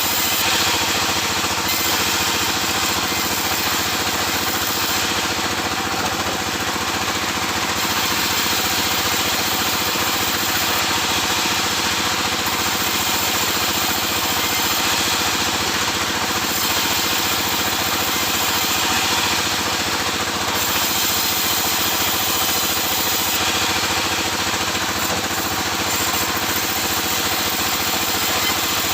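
Sawmill machinery running steadily: a constant motor drone with a loud hiss over it, without a break or a change.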